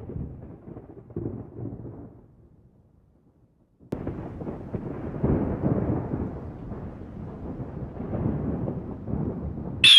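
Thunder rumbling and dying away to near silence about three seconds in. A second long, rolling rumble starts abruptly about four seconds in.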